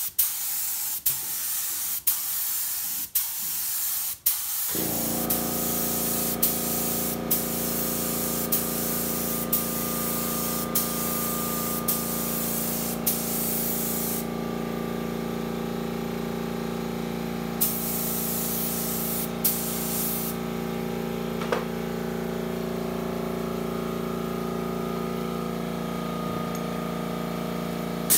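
Iwata LPH 80 spray gun hissing as it sprays in short passes, broken by brief pauses about once a second. About five seconds in, a small 2.6-gallon air compressor's motor kicks in and keeps running with a steady hum and a fast low pulsing. The spray hiss carries on in bursts over the compressor, with a few seconds' pause around the middle.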